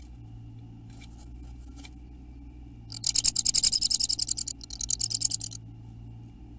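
Great tit in a nest box giving a rapid, high rattling chatter in two bursts, the first about a second and a half long and the second shorter, after a few faint scratches of the bird shifting on the moss nest.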